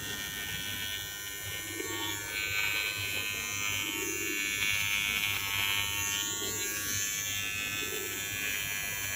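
Philips cordless beard trimmer running with a steady electric buzz as it is run over the face, the higher hiss of the blades shifting as they meet the skin and stubble.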